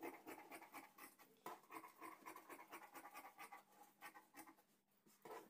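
Scissors snipping through blouse lining cloth: a faint, quick run of short cuts, several a second, with a brief pause near the end.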